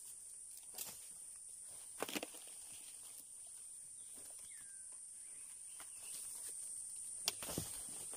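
Boots stepping and crunching on dry leaf litter, with a few sharp snaps and knocks as sticks are picked up and moved, loudest about two seconds in and near the end. Insects keep up a steady high-pitched drone.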